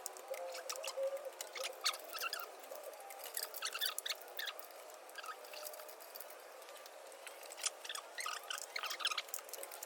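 Irregular small clicks, snaps and crackles of hand work on engine-bay wiring: plastic connectors and a wiring harness being cut and pulled loose.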